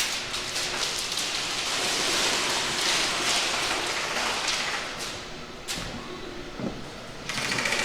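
Dense, even pattering noise of airsoft guns firing and BBs striking walls and props, easing off about six seconds in.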